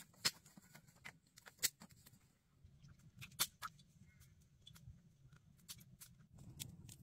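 Sparse sharp wooden clicks and taps, the loudest two in the first two seconds as sticks knock together while being laid on a stick rack over a campfire, then softer scattered taps as battered chicken is handled over a wooden bowl, over a faint low rumble.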